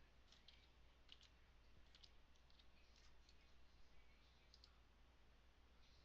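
Faint computer mouse clicks, a dozen or so at irregular intervals, over a low steady hum.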